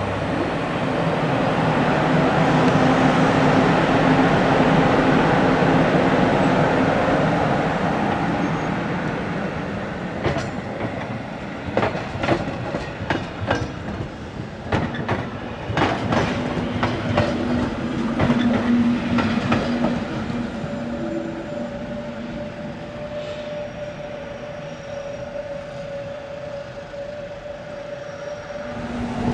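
Matterhorn-Gotthard-Bahn metre-gauge electric train pulling away, its red motor car's motors and blowers humming loudly for the first several seconds. From about ten seconds in, the coaches' wheels click and knock over rail joints and points as the train rolls off, leaving a steady electric hum.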